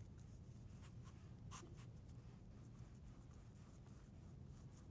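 Faint, scattered scratching strokes of a paintbrush on a textured paint surface, one a little louder about a second and a half in, over a low steady room hum.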